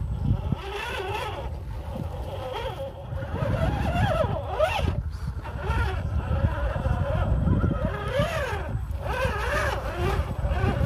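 RC rock crawler's electric motor and gearbox whining, the pitch rising and falling again and again as the throttle is worked while it crawls over rocks, over a steady low rumble.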